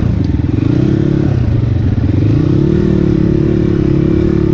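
Dirt bike engine running as it is ridden up a rocky trail. Its pitch drops a little about a second in, climbs back, and then holds steady.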